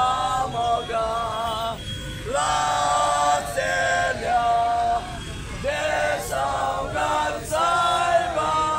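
A man shouting in a raised, drawn-out voice, in words the transcript does not catch, with other voices around him.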